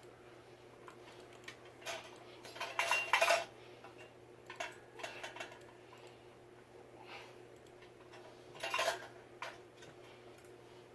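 Light metallic clinks, clanks and rattles of ceiling fan parts and hardware being handled during assembly, loudest about three seconds in and again near nine seconds, over a steady low hum.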